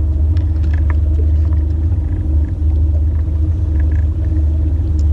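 A boat's motor running steadily at trolling speed, a low, even rumble with a steady hum above it. A few faint knocks come over it.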